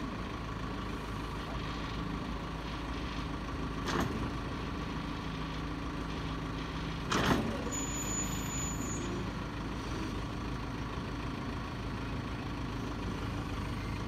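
Backhoe loader's diesel engine running steadily, with two sharp knocks: one about four seconds in and a louder one about seven seconds in.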